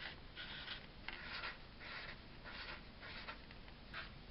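Felt-tip marker drawing small swirls on paper: a faint, scratchy squeak with each short stroke, about one every half second.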